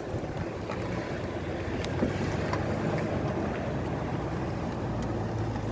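The clicking noise the owner is showing in a Ford Expedition: two sharp clicks, about two seconds in and again half a second later, over a steady low hum.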